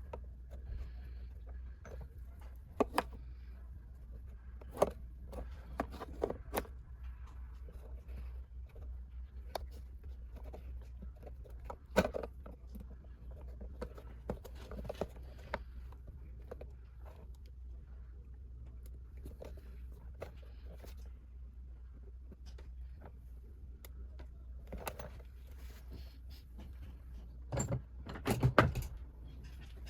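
Scattered small clicks, taps and clinks of hard objects being handled, a few of them sharper knocks, over a low steady hum.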